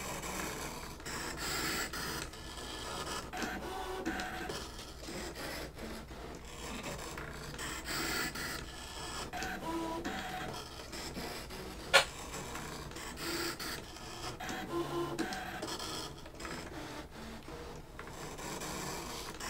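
A Brother ScanNCut cutting machine runs steadily as it cuts chipboard. Its motors whir in shifting short tones as the blade carriage travels side to side and the rollers move the mat back and forth. There is one sharp click about twelve seconds in.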